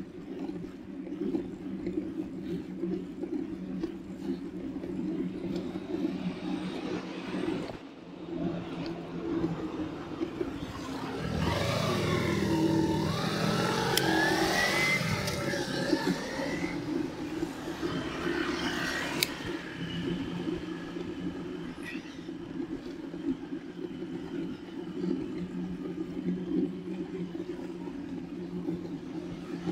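Bicycle tyres humming steadily on the road while riding, picked up through a camera strapped directly to the handlebar. About a third of the way in the noise swells louder for several seconds with rising and falling whines, and there are a couple of sharp clicks.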